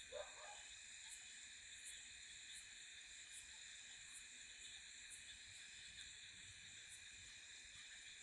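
Faint chorus of night insects such as crickets: a steady high buzz, with a soft high chirp repeating about every three quarters of a second.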